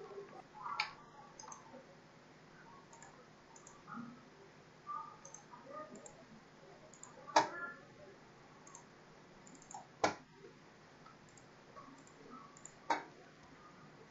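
Computer mouse clicks: four sharp single clicks a few seconds apart, with fainter small ticks in between.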